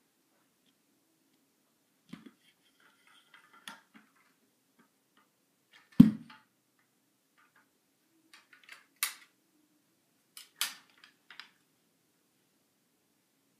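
Scattered clicks and knocks of a phone being handled and fitted onto a small old tripod. The loudest is a sharp knock about six seconds in, with a few sharper clicks later.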